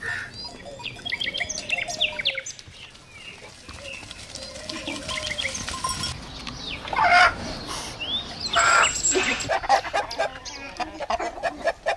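Birds calling over one another: quick high chirps through most of it, low rising-and-falling calls in the first few seconds, and louder, harsher calls around seven and nine seconds in, with chickens among the callers.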